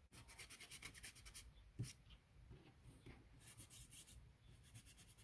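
Faint, quick back-and-forth strokes of a sanding stick on a small 3D-printed resin part, about ten strokes a second, in two short spells, with a single light knock about two seconds in.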